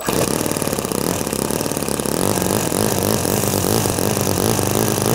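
Miniature FS-S100AT see-through four-stroke model engine starting up suddenly and then running steadily, with a fast, even patter of firing strokes and a pitch that wavers slightly.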